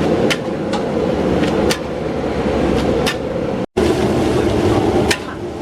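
Metal spatula striking a wok in sharp, irregular clinks over a steady rushing stove noise as mie balap noodles are stir-fried over high heat.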